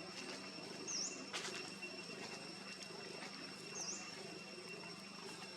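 A bird gives a short, high chirp that dips and rises in pitch, twice about three seconds apart. A sharp click comes just after the first chirp. A steady high-pitched drone runs underneath.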